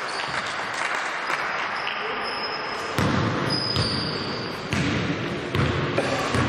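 Basketball game on an indoor court: the ball bouncing on the floor in repeated sharp knocks, brief high squeaks of sneakers, and players' voices.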